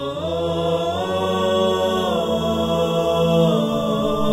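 Intro music of slow vocal chanting in long held notes that glide between pitches, over a steady low drone.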